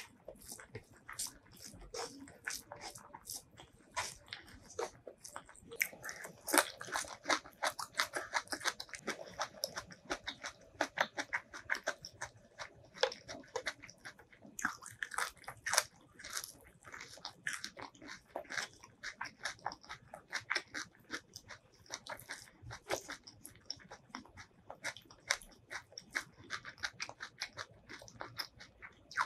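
Close-miked eating: wet chewing and smacking mouth clicks, with crunchy bites of green vegetable stems, as rice and egg curry are eaten by hand. The clicks come rapidly and without a break, and are busiest about six to fourteen seconds in.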